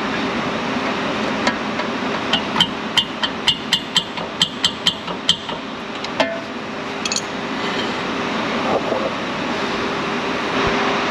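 A quick run of about a dozen sharp metallic clicks, a few per second, that stops about five seconds in, over a steady background hum.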